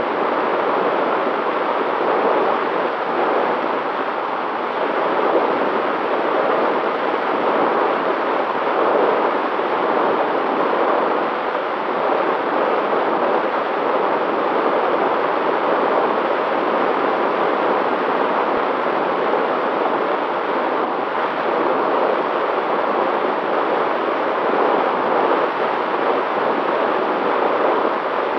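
Steady rush of airflow and propeller noise picked up by the onboard camera of an FPV drone in flight, with a faint steady motor tone underneath.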